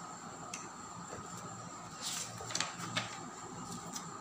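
Large paper pages of a drawing book being handled and turned: a short rustle about halfway through, then two sharp crackles of the paper, over a steady faint background hum.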